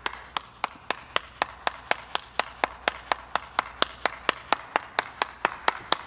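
A single person clapping alone, a steady, even clap about four times a second.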